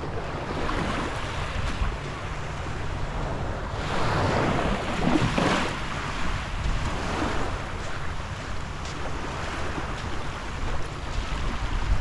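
Sea surf washing onto the shore, with a louder wave breaking about four seconds in, and wind rumbling on the microphone.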